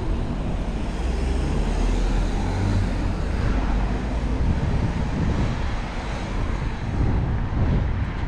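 Street traffic noise from a car driving along the road, mixed with a low, gusting rumble of wind on the microphone.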